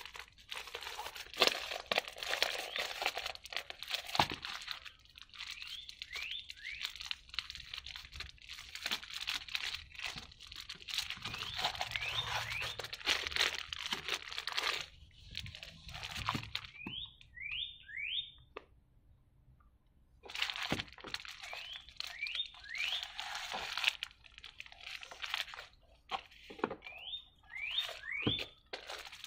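Plastic wrapping on board-game punchboard sheets crinkling and rustling as it is handled and pulled open, with a quiet lull of a couple of seconds a little past the middle.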